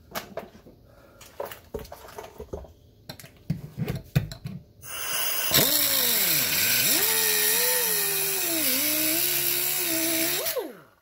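Air-powered die grinder with a cutoff wheel cutting the steel of a car's transmission tunnel. It starts about five seconds in as a loud hiss with a whine whose pitch drops and wavers as the wheel bites into the metal, then stops just before the end. Before it come a few light knocks and taps.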